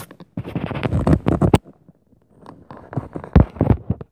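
Scraping and rubbing handling noise as a phone is moved around in the hand, then two heavy low thumps about three and a half seconds in, taken for stomping footfalls from the apartment upstairs.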